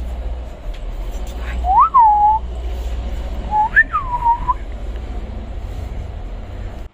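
A person whistling twice, about two seconds apart, each whistle rising in pitch and then falling back, over a steady low hum.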